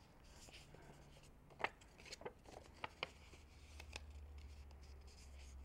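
Faint crinkles and a few small crisp ticks of construction paper being creased and folded by hand, over a low steady room hum.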